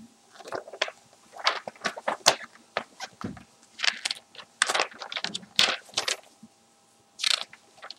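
Paper rustling and crinkling in irregular bursts as a magazine's pages are handled and turned, with a short pause shortly before the end.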